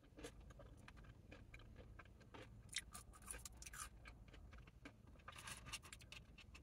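Faint close-up chewing of fried chips (fries), with small irregular crunches and mouth clicks over a low steady hum.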